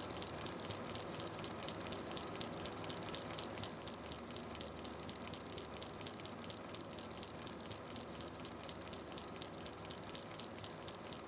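Film projector running: a steady hiss with rapid, dense clicking from the mechanism.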